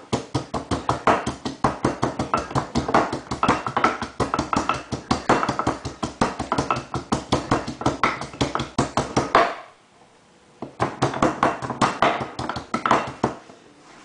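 Rapid, even tapping strikes, about five a second, as garlic is pounded to crush it. The pounding stops about nine and a half seconds in, then starts again for a few seconds after a short pause.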